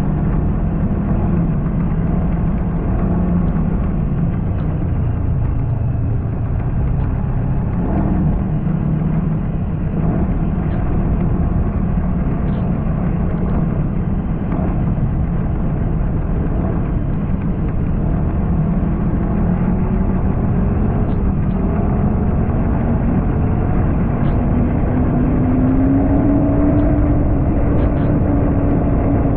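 Snowmobile engine running under way, over a steady low rumble. About three quarters of the way through, its pitch rises as it speeds up, then holds higher and a little louder.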